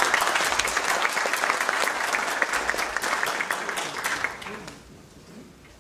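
Audience applauding, many hands clapping at once; the applause dies away about four and a half seconds in.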